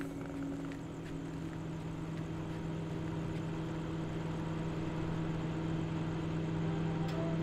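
Low, steady droning hum of a horror-film underscore, with a faint noisy wash over it.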